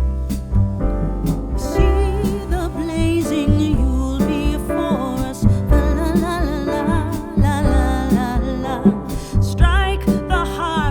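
Upbeat Christmas song with a steady drum and bass beat and piano; a singing voice with vibrato comes in about two seconds in and carries on.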